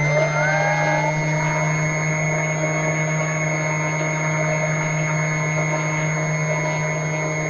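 Electric motor and propeller of an FMS Cessna 182 RC model plane running steadily in flight: a steady high whine over a low hum, with a brief rising tone near the start.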